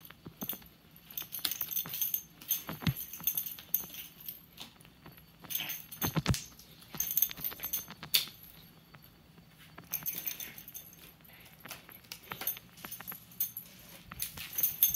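A pet's metal collar tags jingling and clinking in irregular bursts as the animal moves, with quiet stretches between.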